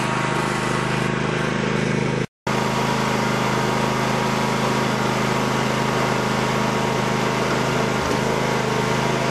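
Riding lawn mower's engine running steadily at an even pitch. The sound cuts out completely for a split second about two seconds in, then resumes unchanged.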